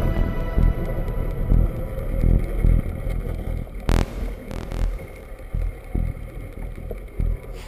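Muffled, pulsing low rumble of boat motors heard underwater through a camera housing, with one sharp knock about four seconds in.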